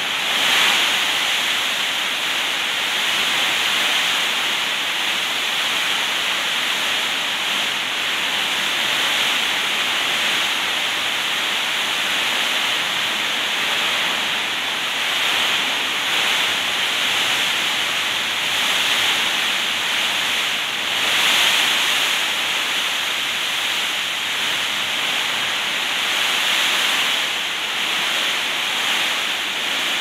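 Heavy rain with wind, pouring steadily onto corrugated metal roofs and a puddled concrete yard: a dense, even hiss that swells now and then, most strongly just after the start and again about twenty seconds in.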